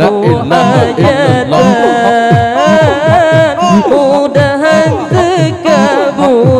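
Zikir saman dhikr: a solo voice sings a long, ornamented melismatic line of Islamic devotional chant over a steady beat of low strokes, a few each second.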